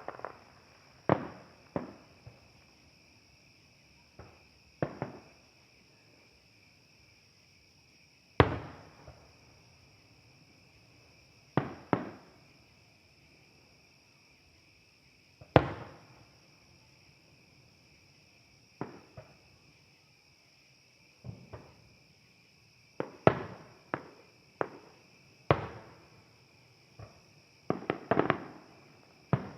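Distant fireworks going off: sharp bangs at irregular intervals, each with a short echo, some in quick clusters and a crackling run near the end. Under them runs a steady, high insect chirring.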